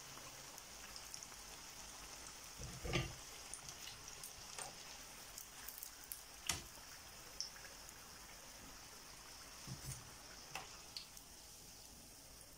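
Deep-frying oil sizzling faintly in a frying pan as fried fish rolls are lifted out with metal tongs, with a few scattered knocks and clicks, the strongest about three, six and ten seconds in.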